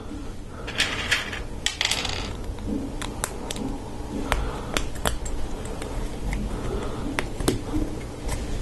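Plastic LEGO Technic parts being handled and snapped together as friction pins are pushed into a lift arm: scattered sharp clicks, with two short rustling bursts about one and two seconds in.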